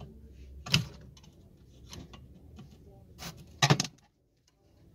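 Sharp clicks and knocks of multimeter probes and a screwdriver being handled against the diode studs and metal case of an opened transformer battery charger: one a little under a second in, then two close together past the three-second mark, the last the loudest, with faint ticks between.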